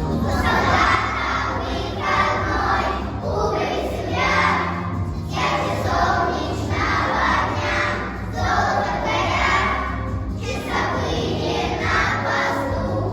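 A group of young children's voices in unison, chanting or singing phrase after phrase in chorus over backing music.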